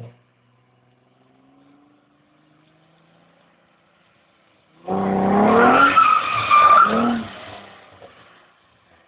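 Nissan 300ZX's V6 engine heard faintly at first, then about five seconds in it revs hard while the tires squeal and skid on the wet pavement in a drift for around two seconds.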